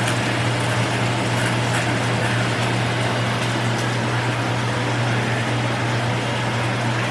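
Steady motor hum over an even hiss, typical of a kitchen range-hood fan running over the stove, with faint light crackles from food frying in the pan.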